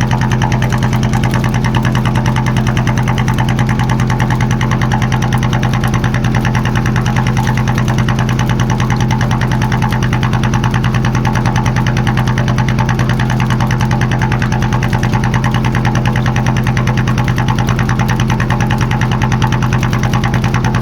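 Small boat engine running steadily at a constant speed, with a fast even beat.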